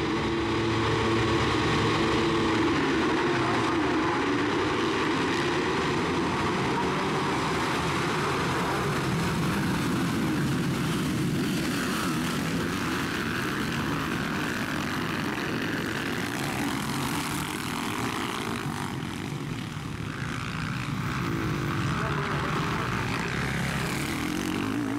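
A pack of motocross bikes racing, many engines revving hard at once. The sound eases slightly about twenty seconds in, then swells again.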